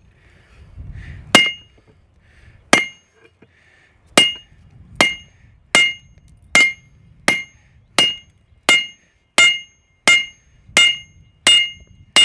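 Hand hammer striking the red-hot end of a round bar on an anvil: about fourteen blows, two slow ones and then a steady beat of roughly one and a half a second, each with a short bright metallic ring. The end of the bar is being forged round before a hole is punched in it.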